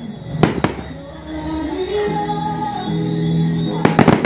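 Aerial fireworks going off: two sharp bangs within the first second, then a quick cluster of bangs near the end. Music plays in between.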